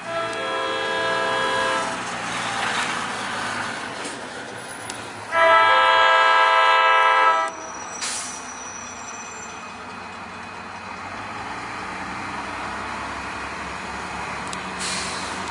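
Train horn sounding two blasts of several tones at once: one about two seconds long at the start, then a louder one of about two seconds around five seconds in. Between and after the blasts the approaching train rumbles steadily.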